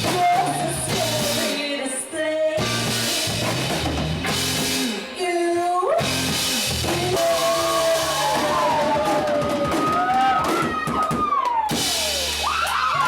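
Rock band playing live, with drum kit and singing.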